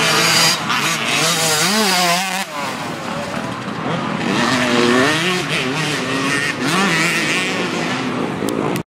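Dirt bike engines racing past, the pitch repeatedly rising and falling as the riders work the throttle. The sound cuts off abruptly near the end.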